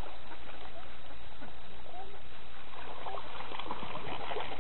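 Mixed flock of waterbirds (ducks, coots, gulls) calling on the water: scattered short calls over a steady hiss, growing busier in the second half.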